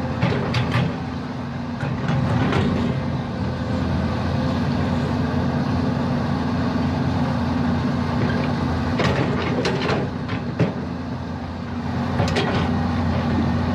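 Komatsu excavator's diesel engine running steadily, with several sharp metallic clanks and knocks from the machine as it is worked, a cluster of them near the middle and more near the start and end.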